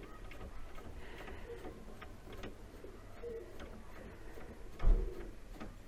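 Faint light ticks and clicks from a CNC lead screw being turned by hand through its anti-backlash nut, with one dull thump about five seconds in.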